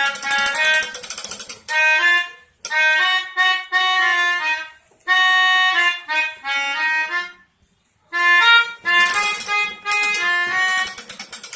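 Pianika (melodica) played in short bursts of chords with brief gaps and one longer pause a little past the middle, imitating the multi-tone 'telolet' horn of an Indonesian Shantika bus.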